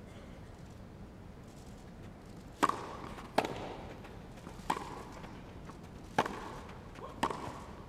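Tennis rally: a ball struck back and forth with rackets, five sharp hits about a second apart, starting a little over two seconds in.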